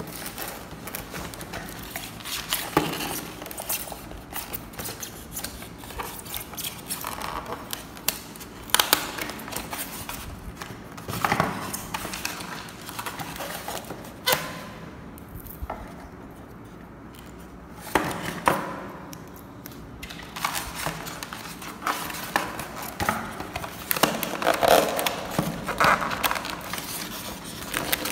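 Cardboard toy-gun box being opened and its polystyrene foam tray handled: irregular rustling and scraping with crackles and sharp clicks and knocks throughout.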